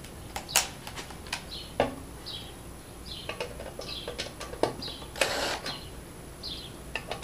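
Porter-Cable cordless impact driver running in one short burst about five seconds in, loosening a screw in the bottom of an LED area light fixture. Around it are scattered clicks and knocks of the tool and the metal-and-plastic fixture being handled.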